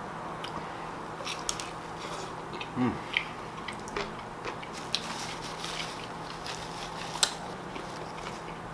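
A person chewing a mouthful of fried chicken sandwich: scattered small crunches and wet mouth clicks, with a short low hum about three seconds in.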